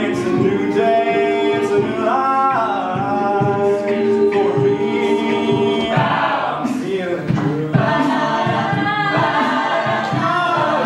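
Mixed-voice a cappella group singing, with a solo voice over held backing chords and a rising vocal glide about two seconds in.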